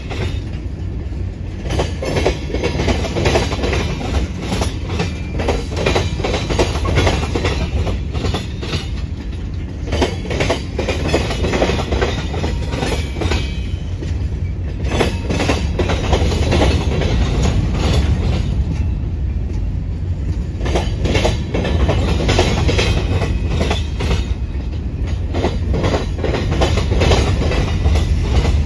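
Freight train of tank cars and covered hoppers rolling past at steady speed: a constant low rumble with repeated clusters of clicking and clacking as the wheels cross the track.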